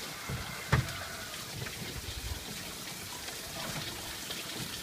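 Water running and trickling at a washing machine, with a single knock about a second in.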